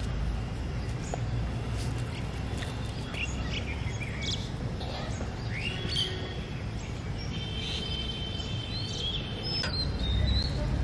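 Outdoor ambience: birds calling in short chirps, with a few held high notes in the second half, over a steady low background rumble.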